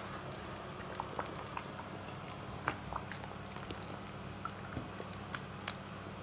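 Thick ogbono and okra soup bubbling in a pot as a wooden spoon stirs it: scattered soft pops and clicks at irregular intervals over a steady low hum.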